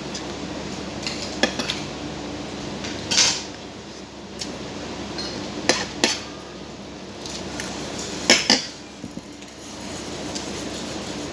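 Spoons and forks clinking and scraping against plates and bowls while eating a meal, in scattered sharp clinks, two of them coming in quick pairs, over a steady background hum.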